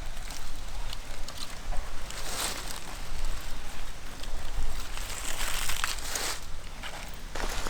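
Dry leaves and twigs crunching and rustling in irregular bursts, with a few sharp snaps.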